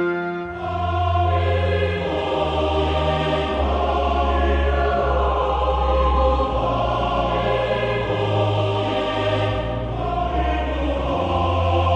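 Slow background music of long held chords over deep, sustained bass notes, with a new chord coming in about half a second in.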